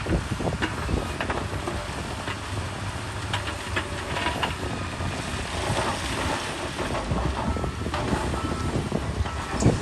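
Diesel earthmoving machinery running with a steady low rumble, with irregular clanking and rattling throughout. Short evenly spaced beeps start near the end.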